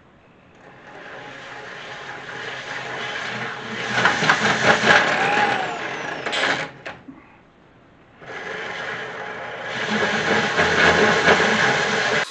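Corded drill driving a 1 3/8-inch hole saw into a metal dash tower: the saw grinds through the metal, stops for a moment after about seven seconds, then starts cutting again.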